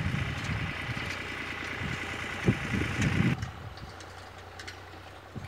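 Tractor engine running as it pulls a manure spreader across the field, with irregular low rumbles over a steady drone. A bit over three seconds in, the sound drops suddenly to a quieter, steady hum.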